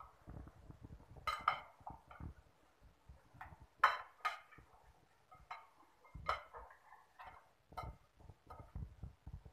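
A metal spoon clinking against a glass mixing bowl as raw fish pieces are turned over in it, in irregular sharp clinks with duller knocks between them. The loudest clink comes about four seconds in.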